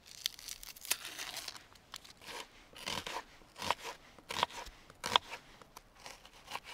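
A small kitchen knife peeling a yellow onion, with the skin scraping. From about two seconds in the onion is chopped on a wooden cutting board, the blade crunching through and knocking on the board about every three-quarters of a second.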